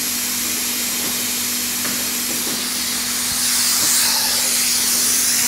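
Hypertherm Powermax85 plasma cutter cutting through 10 mm steel plate: a steady, even hiss of the arc and air jet, with a low hum beneath.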